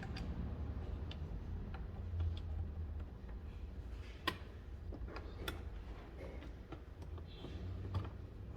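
Light, irregular clicks and taps of small parts and tools being handled during door-latch work, about ten scattered through, over a low steady rumble.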